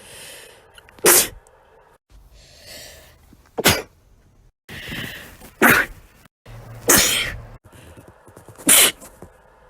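A person sneezing five times in quick succession across short cut-together clips, each a sharp, loud burst, some preceded by a drawn-in breath.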